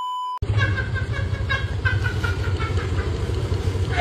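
A short steady test-tone beep, like a TV colour-bar signal, that cuts off about half a second in, followed by a steady low rumble with short faint chirps above it.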